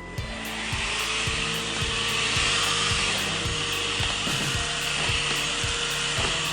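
Vibre A9 cordless stick vacuum switched on and running: its motor whine rises in pitch as it spins up in the first second, then holds steady under a loud airflow hiss.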